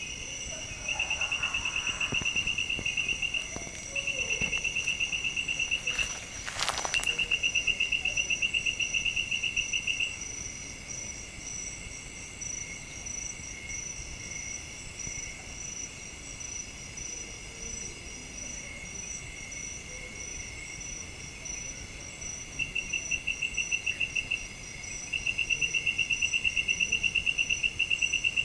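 Night-time jungle insects calling: a loud, rapid pulsing trill comes in phrases a few seconds long, stops for about twelve seconds in the middle and returns near the end, over a steady high-pitched buzz from other insects. A single sharp knock sounds about six seconds in.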